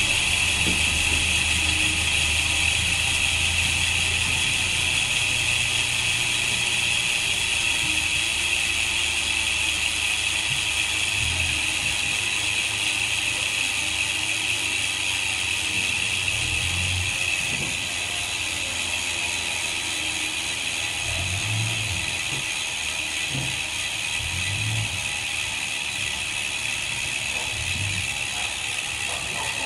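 Weapon Animal Pro ratchet rear hub freewheeling on a spinning mountain-bike rear wheel: a continuous high, rapid clicking buzz that fades slowly as the wheel loses speed. The hub has gone a year of use without maintenance. A few low knocks come in the second half.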